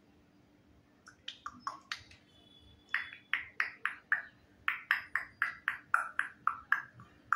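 African grey parrot giving a rapid run of short, sharp whistled notes, about four a second, starting about a second in, with a brief pause before the run picks up again.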